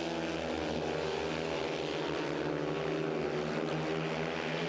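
Speedway motorcycles' 500cc single-cylinder engines running hard as four bikes race around the track: a steady buzzing engine drone whose pitch shifts slightly as the riders go through the bends.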